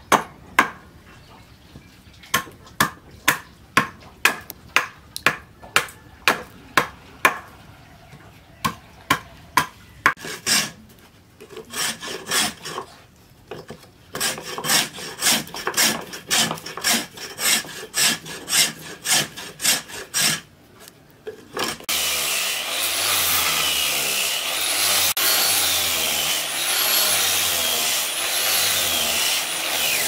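A hand tool chopping into a wooden plank in sharp strikes about twice a second, then rasping at the wood in quicker rhythmic strokes. About 22 seconds in, an angle grinder with a sanding disc starts up and runs loud and steady, its pitch rising and falling as it is pressed against the wooden axe handle.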